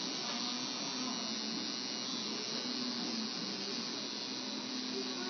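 Electric tattoo machine running with a steady buzz while a single line is tattooed into skin.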